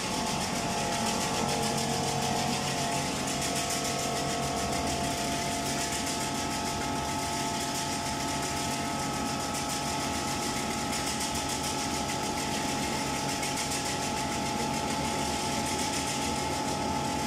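Automatic peanut skin-removing (blanching) machine running steadily: an even motor hum with a held whine and a fast, fine rattle.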